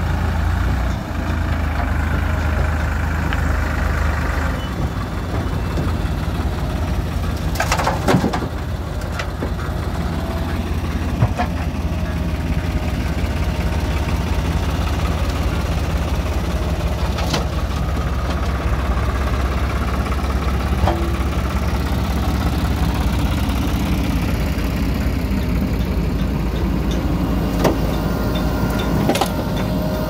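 Diesel engines of a JCB backhoe loader and a tractor running steadily while the backhoe digs and loads soil, with a few sharp metal clanks spread through.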